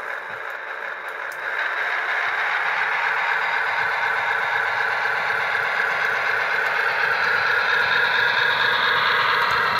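O gauge MTH Centipede diesel locomotive set running along three-rail track: a steady rumble and rattle of wheels and motors, growing a little louder after about a second and a half.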